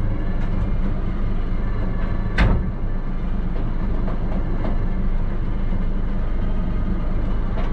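Recovery truck's winch and engine running steadily as a car is hauled up the flatbed, with one loud clunk about two and a half seconds in.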